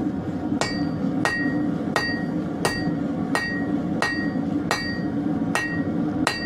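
Hand hammer striking hot leaf-spring steel in a steady rhythm, about three blows every two seconds, each blow with a short metallic ring. A steady low rumble runs underneath.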